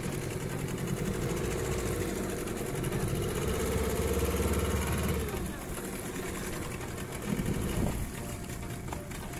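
Small fishing boat's outboard motor running at low speed, steady at first, then a little stronger and higher from about three seconds in before dropping away about halfway through. A brief louder knock comes near the end.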